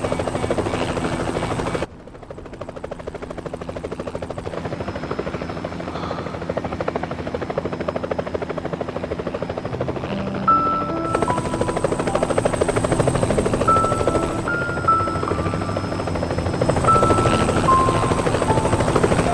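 Bell 505 helicopter's rotor beating in a fast, steady pulse over the turbine's whine. About two seconds in the sound drops suddenly, then slowly grows louder again. From about halfway, gentle music with held notes plays over it.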